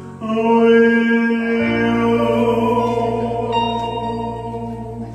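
A singer holds one long note over a backing track, with a steady bass note coming in about a second and a half in.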